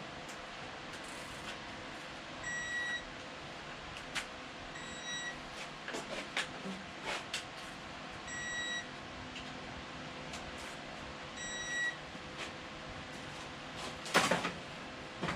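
Digital torque wrench beeping a quick double beep four times, about every three seconds, each time a rod bolt reaches its set torque of 51 ft-lb. Sharp ratchet clicks and tool knocks come in between, louder near the end.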